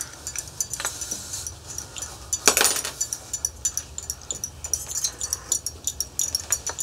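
Teaspoons clinking against small glass tea glasses as several people stir and handle their tea: a busy run of light, quick ticks. A short louder rush comes about two and a half seconds in.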